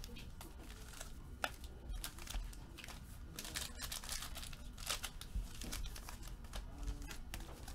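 Sealed trading-card packs crinkling and rustling as they are shuffled by hand, in a run of irregular crackles.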